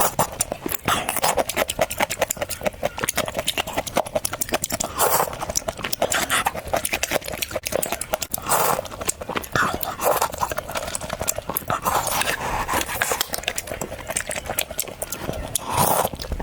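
Close-miked chewing and crunching of crisp fried food, a rapid, dense run of crunches.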